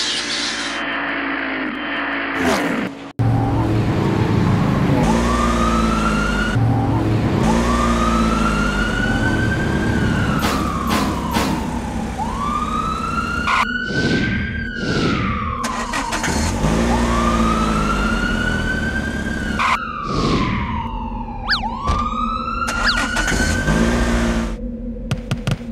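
Cartoon siren sound effect wailing up and down every few seconds over a steady low rumble, with a few quick swooshes.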